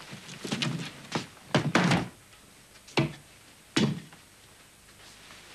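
A run of hard thuds and knocks: a door shutting, with the loudest thumps a little under two seconds in, then two more single sharp strikes less than a second apart.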